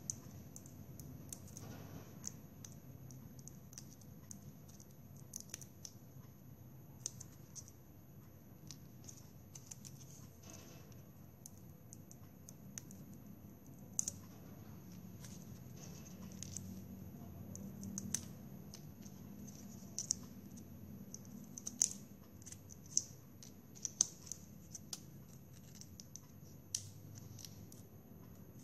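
Scissors snipping plastic drinking straws: a run of short, irregular snips and clicks, with a few sharper cuts in the second half.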